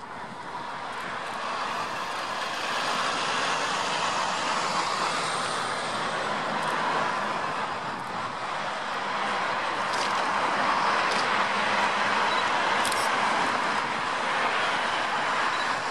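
Jet engine noise of an Airbus A350's Rolls-Royce Trent XWB turbofans as the airliner climbs away and banks: a steady rushing sound that grows louder over the first few seconds.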